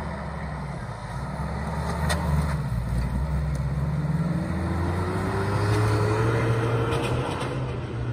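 Jeep Cherokee XJ engine revving under load as the vehicle drives up the course and away, rising steadily in pitch from about halfway through.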